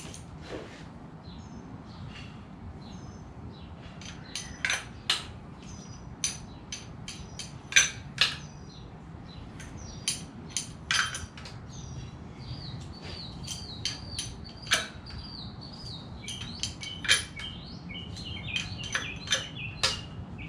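Irregular metallic clinks and clanks of hand tools and engine parts being handled during engine assembly, with birds chirping in the background.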